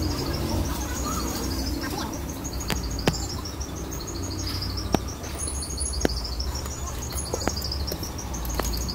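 Street background with a steady low rumble and a rapid run of short high chirps, about five a second, drifting slowly up and down in pitch. A few sharp clicks stand out over it.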